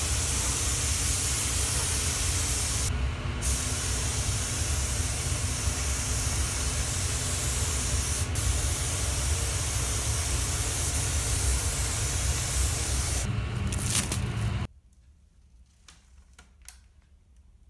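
Apollo turbine HVLP spray gun spraying paint: a loud, steady hiss of air and paint with a low rumble beneath. The hiss drops out briefly twice. Near the end it cuts off suddenly, leaving only a few faint clicks.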